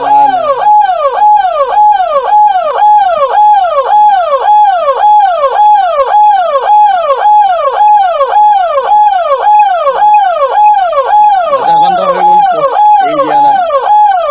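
Ambulance siren wailing, a tone rising, holding, then falling, repeated a little over twice a second. Brief voices near the end.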